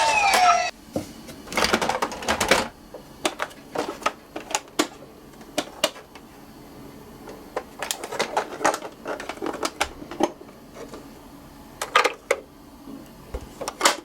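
A toy electronic siren falling in pitch and cutting off within the first second, then irregular sharp clicks and clacks of small toy cars knocking against each other and a plastic slope.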